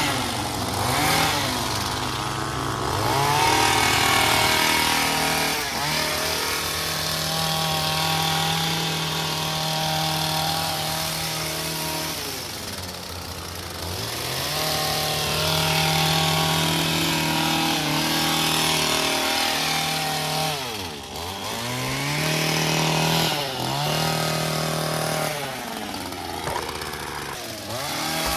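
Handheld gas-powered trimming tool's small engine held at high revs as it cuts, the throttle easing off and coming back up several times, including twice near the end.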